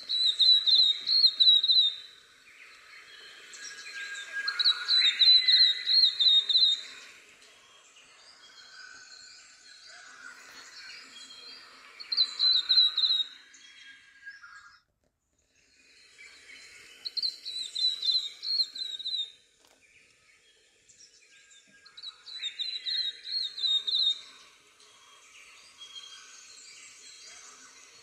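Flame robin singing: five short phrases of rapid high notes, a few seconds apart, from a field recording with faint background ambience between the phrases. The ambience drops out briefly about halfway through.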